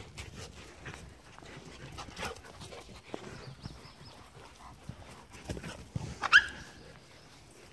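Puppies and an adult dog playing together, scuffling on the grass, with one short, high-pitched yelp about six seconds in.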